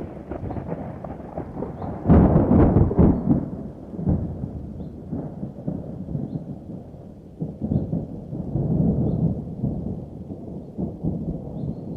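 Thunder: a loud crash about two seconds in that rolls on into a long low rumble, swelling again in the second half.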